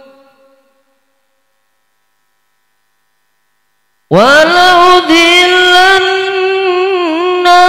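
Solo young male voice reciting the Qur'an in melodic tilawah style through a microphone. The previous phrase dies away, then there are about three seconds of silence. About four seconds in, a new phrase begins with a steep upward slide onto a long held, ornamented note.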